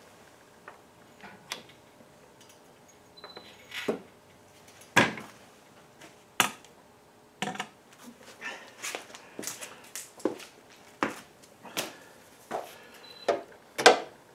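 Hand tools clinking and knocking against metal parts in a car's engine bay: irregular single clicks and knocks, the loudest about five seconds in and just before the end.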